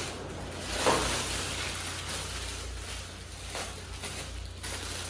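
Clear plastic wrapping on a chair backrest crinkling and rustling as it is handled, with a few louder crackles.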